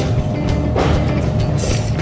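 A person slurping a mouthful of mixed noodles, two short sucking slurps about a second apart, over background music.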